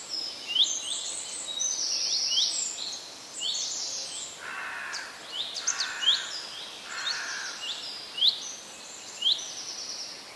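Several birds singing: quick high chirps and trills repeating throughout, with three lower calls about a second apart near the middle.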